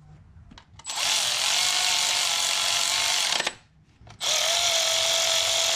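A handheld power tool run in two bursts of about two and a half and one and a half seconds, with a steady whine, as bolts are run in on the new coolant pipes.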